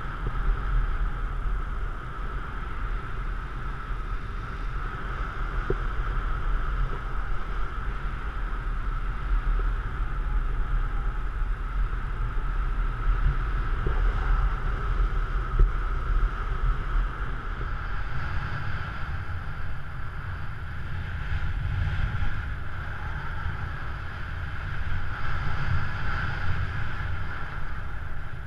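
Wind rushing over the camera's microphone in paraglider flight: a steady low rumble with a hiss above it. The deepest buffeting eases off about two thirds of the way through.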